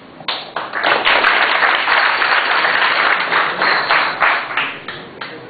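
Audience applauding: the clapping swells within the first second, then thins to a few scattered claps and dies out near the end.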